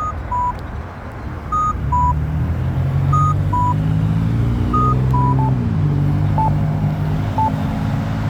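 Accessible pedestrian signal push button sounding a repeating two-note high-then-low beep, changing about five seconds in to a single beep about once a second. A vehicle engine passes underneath, its pitch dropping around the middle.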